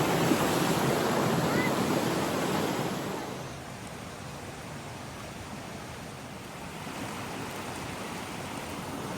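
Steady rushing of a river's flowing water, a broad hiss that drops to a quieter level about three seconds in.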